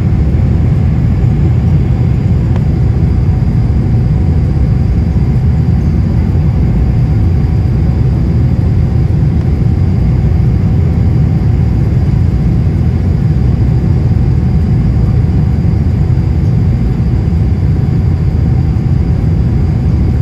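Jet airliner cabin noise on the descent to landing: the engines and rushing air make a loud, steady low rumble, with a faint steady whine above it, heard from a window seat over the wing.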